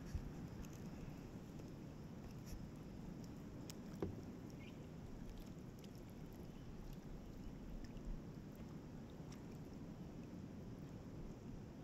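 Kayak paddling: a double-bladed paddle dipping and pulling through calm river water, with faint water noise and three light knocks about four seconds apart.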